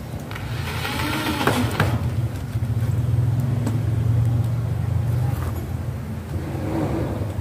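A motor running steadily at a low pitch, with a few knocks about a second and a half in.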